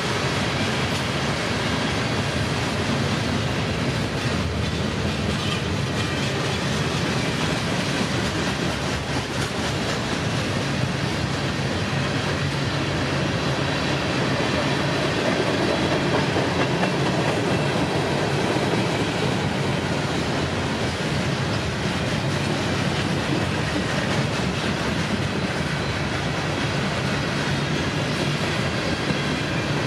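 Cars of a manifest freight train rolling past: steady noise of steel wheels running on the rails, even in level throughout.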